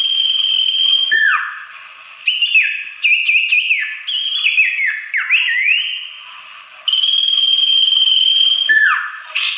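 Common iora (sirtu) calling, played as a bird-lure recording. It gives a long, steady, high whistle, then a falling note, then a rapid run of short sliding notes. A second long whistle and another falling note come near the end.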